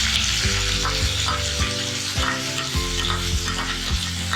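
Sliced onions sizzling in hot oil in a pan as they are sautéed, with the spoon knocking and scraping against the pan now and then as they are stirred.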